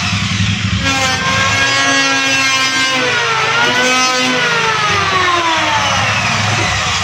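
Electric wood planer running loud, its motor whine sliding slowly down in pitch, climbing back quickly about halfway through, then sliding down again.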